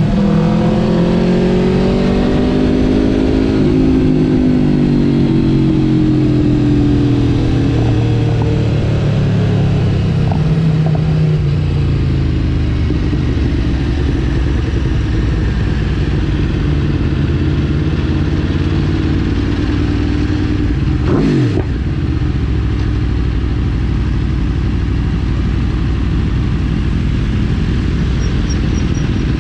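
Aprilia RSV4 Factory's 1,100 cc V4 engine heard from the rider's seat. Its revs rise and fall, then drop away as the bike slows, and it settles to a steady low engine note for the second half. A short falling engine sweep comes about two-thirds of the way in.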